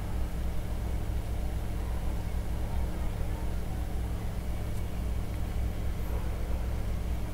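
Steady low hum with a faint hiss, unchanging throughout: the background noise of the recording setup while nobody speaks.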